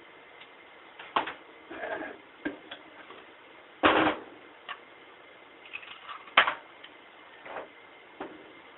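Metal parts of a 700R4 automatic transmission clinking and clattering as they are handled, in irregular clicks and knocks. The loudest clatter comes about four seconds in, and a sharp click follows just past six seconds.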